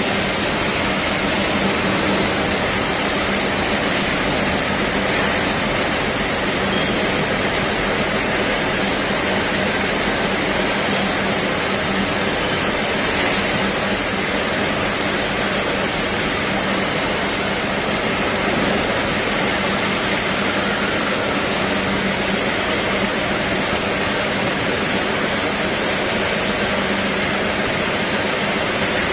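Lathe with a hydraulic copy turning attachment running its automatic cycle, the spindle, hydraulic power pack and cutting tool making a steady, even machine noise with a constant low hum as a steel bush is turned.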